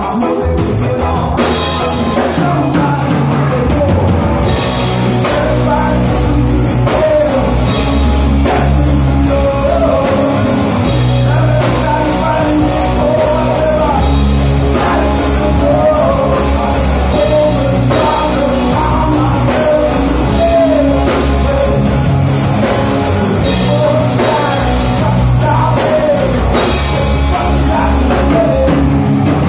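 Live rock band playing loud: electric guitars, bass guitar and drum kit, with a wavering melodic line above them from about a third of the way in.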